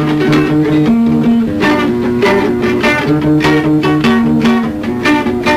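Instrumental stretch of a mid-1980s Peruvian underground rock song: a guitar repeats a riff over steady drum hits.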